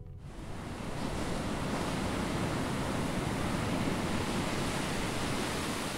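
Ocean surf washing onto a sandy beach: a steady hiss of breaking waves that swells in over the first second and then holds level.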